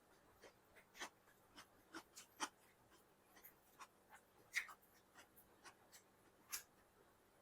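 Eating sounds: soft, irregular chewing and mouth clicks while eating chicken biryani, with a sharper smack about four and a half seconds in and another near the end.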